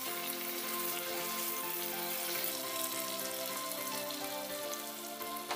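Chilli sauce sizzling in a nonstick frying pan as it cooks down, with background music throughout. There is a single sharp click near the end.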